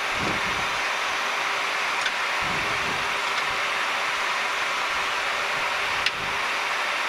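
Steady flight-deck noise of a Boeing 737 taxiing: an even rush of airflow with a steady hum under it. There is a light click about two seconds in and a sharper one about six seconds in.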